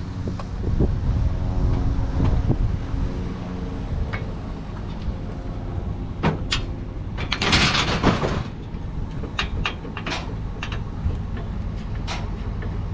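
Metal bed-frame parts knocking and clanking as they are handled, with a longer scraping rush about halfway through, over a steady engine hum.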